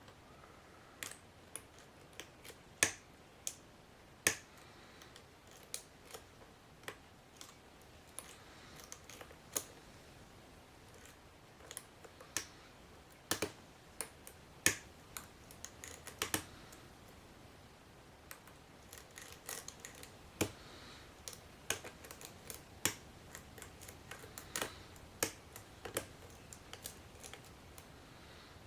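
Lock pick working the pins of a solid-brass pin-tumbler padlock with spool pins during single-pin picking: light, sharp, irregular metallic clicks, a few a second at times, some louder than others.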